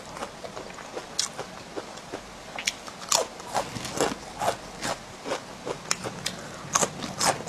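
Crispy guoba (fried rice-crust chips) being bitten and chewed close to the microphone, with a run of sharp, irregular crunches.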